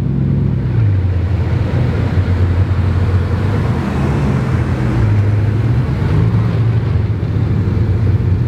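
Bugatti Veyron 16.4 Grand Sport Vitesse's quad-turbocharged W16 engine running at low revs as the car drives slowly past: a deep, steady drone that rises and falls a little in pitch a few times.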